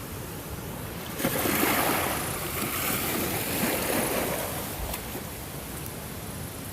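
Ocean surf: a wave breaks about a second in, rushes loudly for a few seconds and then washes back down into a steady hiss of surf.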